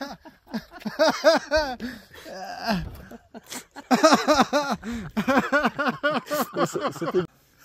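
Hearty laughter in long fits of quick, repeated bursts, breaking off shortly before the end.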